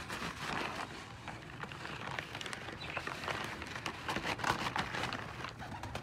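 Brown paper bag crinkling and rustling in irregular bursts as a hand reaches in and lifts out a pigeon.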